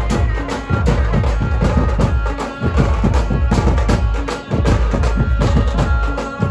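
Dhumal band playing loud festive folk music: drums and metal cymbals struck in a fast, steady beat over heavy bass, with a melody line on top.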